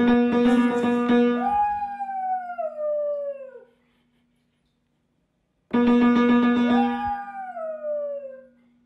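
A piano note is struck and held, and a dog howls along with it, twice. Each time the howl swings up in pitch and then slowly falls away over about two seconds.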